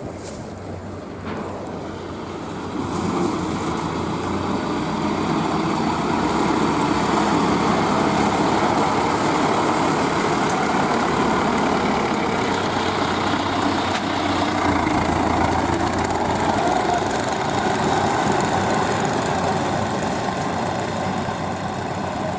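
Engine of a crawler rice-hauling tractor running. It grows louder about three seconds in and then holds steady.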